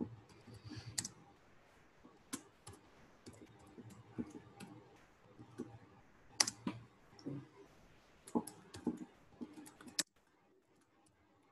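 Keystrokes on a computer keyboard: irregular clicks of typing, some in quick runs, that stop abruptly about ten seconds in.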